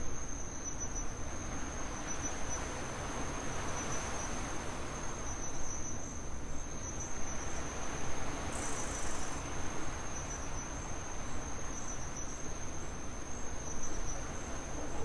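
Insects trilling in one steady, unbroken high-pitched tone, over a low even hiss.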